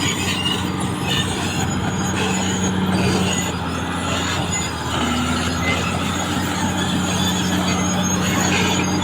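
CAT D6R XL bulldozer's diesel engine running steadily, with a high metallic squeal from the steel tracks, shifting pitch briefly about five seconds in.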